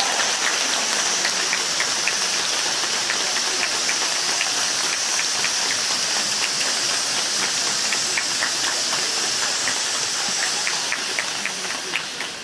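Stage spark fountains hissing steadily in a fizzing spray, with scattered sharp ticks through it; the hiss eases off near the end as the fountains burn down.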